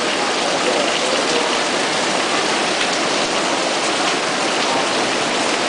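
Heavy monsoon downpour, a steady dense hiss of rain pouring onto a paved street and a canvas awning overhead.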